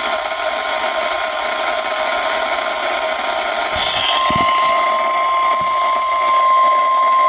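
NOAA Weather Radio warning alarm tone, a single steady tone near 1050 Hz, heard over radio static hiss and growing somewhat stronger about halfway through. A few faint clicks come about four seconds in. It is the attention signal that comes before a warning message, here a flood warning.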